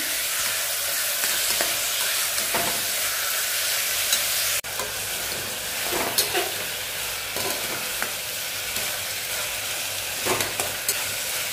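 Chicken, potatoes and carrots sizzling in mustard oil in a pressure cooker as a slotted spatula stirs them, scraping and knocking against the pot now and then. The sound breaks off for an instant a little before halfway.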